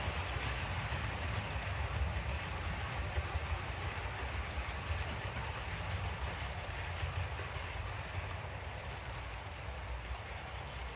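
Model train running on the layout's track: a steady low motor hum with the rattle of wheels on rails, fading a little near the end.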